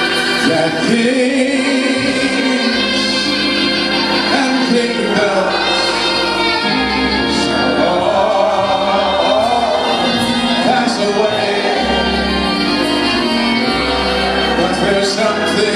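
Gospel music: a choir of mixed voices singing over instrumental accompaniment with a steady bass line.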